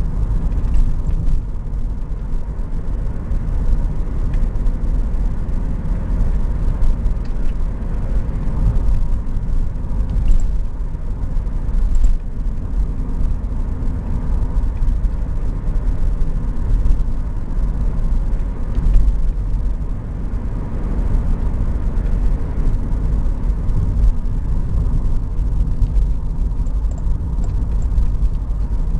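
Classic car's engine and tyre noise heard from inside the cabin while driving, a steady low rumble.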